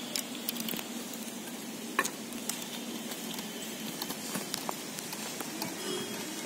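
Steady background hiss with scattered light clicks and ticks, one sharper click about two seconds in.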